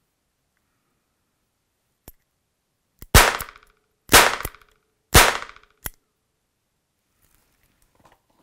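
A .357 Magnum revolver firing primer-only cases, with no powder or bullet: three sharp pops about a second apart, each with a short ring-out. A small click comes before the first and another after the last.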